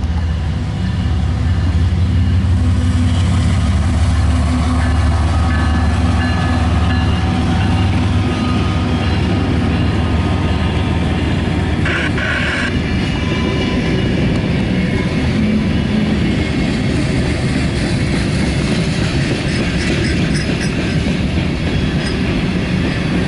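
CSX local freight train of flatcars loaded with containers rolling past: a steady low rumble, heaviest in the first several seconds, with a brief high-pitched squeal about halfway through.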